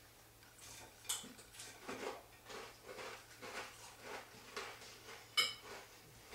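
Spoon and fork clinking against a cereal bowl and a plate as two people eat breakfast, a string of light clicks with one sharper clink about five seconds in.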